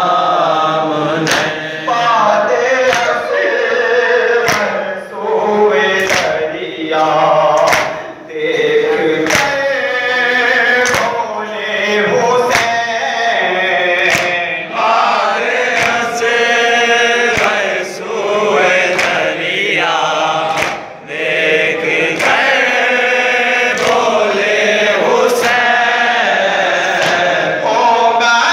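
Urdu noha, a mourning lament, chanted by a male reciter and taken up by a crowd of men in unison. Their sung lines are punctuated by rhythmic chest-beating (matam) slaps, roughly one a second.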